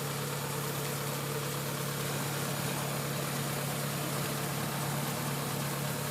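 Kubota DC70 Plus combine harvester's diesel engine running steadily, with an even hum that does not change.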